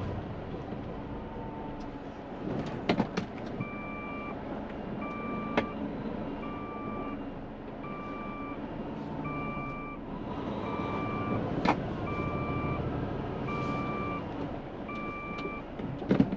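Hino truck's reversing alarm beeping, one steady tone about every second and a half as the truck backs up, heard from inside the cab over the diesel engine running. A few sharp clicks from the cab.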